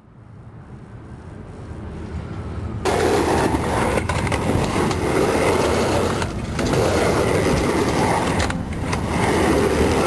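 Skateboard wheels rolling on a skatepark ramp, a steady rumbling noise. It fades up faintly at first and becomes loud about three seconds in, dipping briefly twice.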